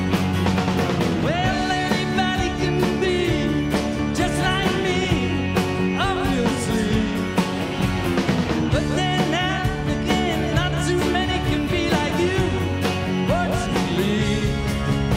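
Live rock band playing: a man's lead vocal sung over strummed acoustic guitar, electric guitars, bass and drums.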